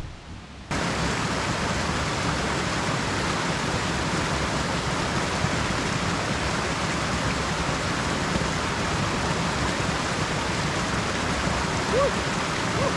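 Steady rush of a small cascade in a mountain stream, water pouring over rocks into a pool. It cuts in suddenly under a second in.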